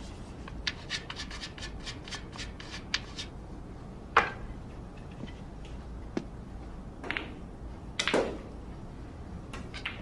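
A player handling a pool cue at the table while getting ready to shoot: a quick run of small scratchy clicks over the first three seconds, then a few separate louder knocks and rubs, over a low room hum.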